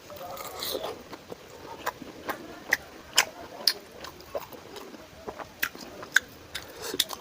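Close-miked eating: chewing with sharp, wet mouth clicks and smacks coming irregularly, a couple a second, as a meal of luchi and curry is eaten.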